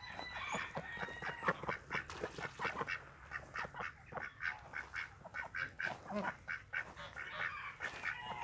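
A flock of farmyard fowl calling, many short calls overlapping in a quick run of several a second.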